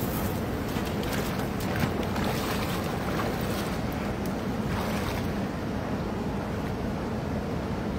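Steady rush of a flowing river with wind buffeting the microphone, and a few splashes in the first half as a man wades into the shallow water at the bank.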